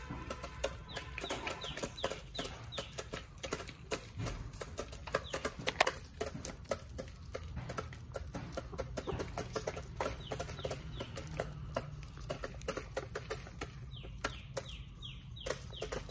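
Backyard chickens clucking while they peck at scattered grain, with many quick sharp taps throughout and short runs of falling calls near the start and near the end.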